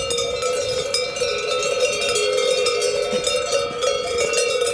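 Cowbells on a herd of cows clanking continuously in a dense, overlapping jangle of many bells, the cows stirred up and moving about.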